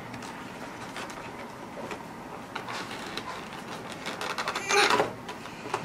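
Light clicks and rattles of small plastic construction-toy pieces being handled and picked out of a plastic box tray, with a louder clatter about five seconds in.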